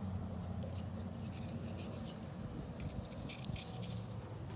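Rapid crinkly rustles and clicks from a hand handling a small paper-wrapped novelty firework, over a steady low hum.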